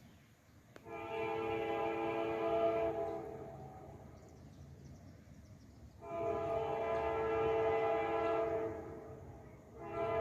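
Diesel freight locomotive's multi-chime air horn sounding two long blasts, with a third starting near the end, over the low rumble of the passing train.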